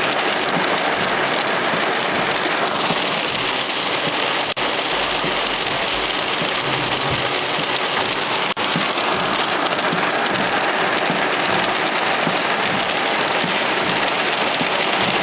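Heavy thunderstorm downpour: a steady, dense hiss of rain pelting grass and a flooded path, broken by two brief dropouts about four and a half and eight and a half seconds in.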